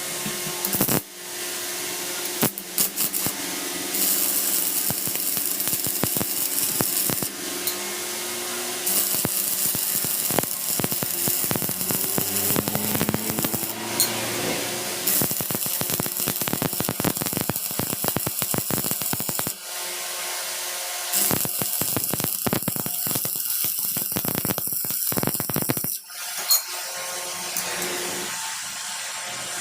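A power tool running in a workshop: a steady motor whine with a hiss and rapid clicking, briefly dropping off about a second in, at about twenty seconds and at about twenty-six seconds.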